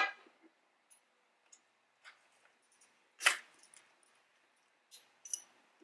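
Scattered metallic clicks and clinks of a ratchet and socket working the 10 mm bolts that hold the fuel rail, the sharpest one about three seconds in.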